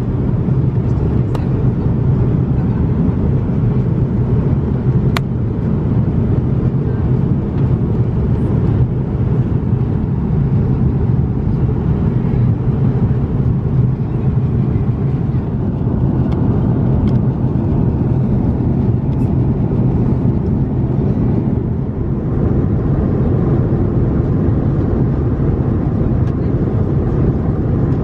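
Steady, low-pitched cabin noise inside an Airbus A340-600 airliner: engine and airflow noise with an even level. A few faint clicks, one clearer about five seconds in.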